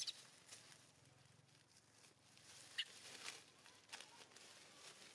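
Faint rustling of dry leaves as young macaques tussle and scamper on the forest floor, with two short high squeaks, one right at the start and one a little before three seconds in.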